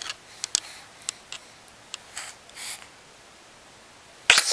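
A five-week-old baby sneezing once, sudden and loud, near the end, after a few small clicks and a couple of soft breaths.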